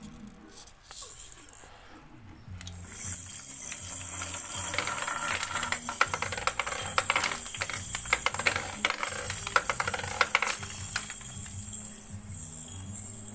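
Plastic balls rattling down a plastic spiral ball-tower toy and rolling onto a grooved wooden slope. It is a dense clatter of small knocks that starts about three seconds in and dies away near the end.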